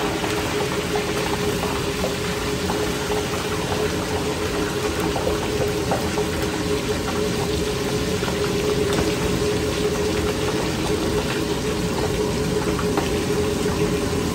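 Lobster head pieces deep-frying in a wok of oil at a hard boil: a steady sizzle peppered with small crackles, over the steady roar and hum of a gas wok burner on high flame.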